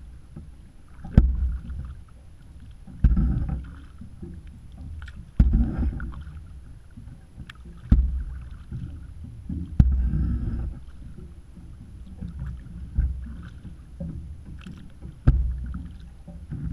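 Kayak paddle strokes: the double-bladed paddle dipping and pulling through the water about every two to three seconds, each stroke starting with a sharp click and followed by about a second of splashing.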